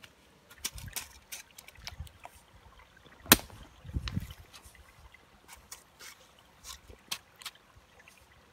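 A hoe chopping and packing wet mud around a bamboo fish trap: scattered clicks and scrapes, a sharp knock a little over three seconds in, then a few dull thuds, over faint trickling water.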